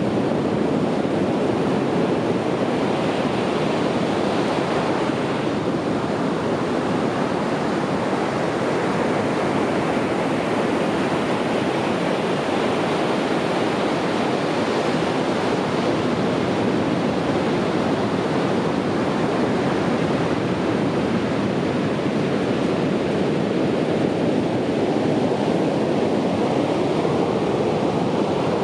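Sea surf washing on a beach: a steady, continuous rush of breaking waves, with no distinct crashes or pauses.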